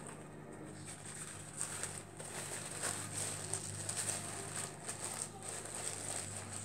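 Paper napkin rustling and crinkling as it is rubbed over the mouth: a run of short, scratchy rustles that come thicker after the first second or so.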